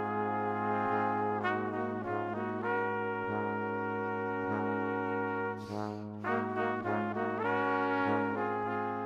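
Background music: sustained chords changing every second or two over a steady low drone, with a brief break about six seconds in.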